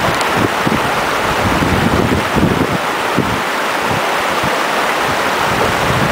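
A small stream rushing over stones, with gusts of wind buffeting the microphone.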